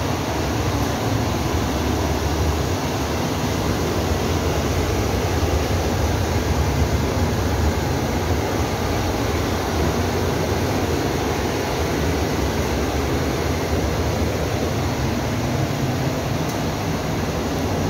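Several lit high-pressure LPG stove burners burning with a steady rushing noise.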